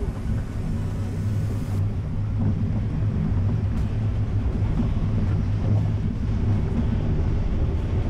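Nissan X-Trail driving along a rough gravel track through shallow puddles: a steady low rumble of engine and tyres.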